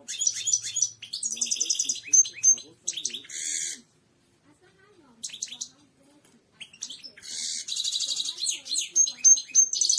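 European goldfinch singing: fast, twittering phrases with buzzy trills. The song comes in two bouts, with a gap of a few seconds in the middle holding only scattered notes.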